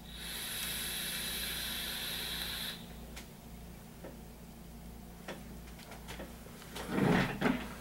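A rebuildable dripping atomizer (Derringer clone) with a 0.5-ohm coil fired at 55 watts hisses steadily for nearly three seconds as air is drawn through it and the coil vaporizes e-liquid, then cuts off abruptly. A short, louder sound follows near the end.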